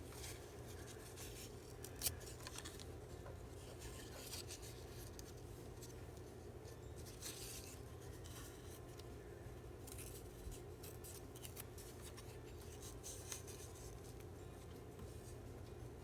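Faint handling of paper and craft supplies: scattered short rustles, clicks and snips in small clusters over a steady low hum.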